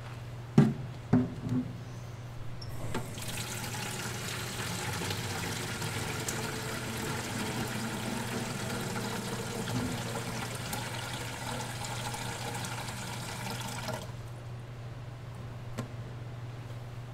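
Tap water running from a sink faucet into a clear plastic food pan, filling it; the flow is shut off suddenly near the end. A few sharp knocks come just before the water starts.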